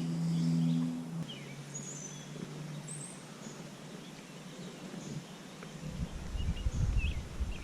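Riverside outdoor ambience with small birds chirping now and then. A low steady hum fades out in the first few seconds, and low wind rumble on the microphone builds near the end.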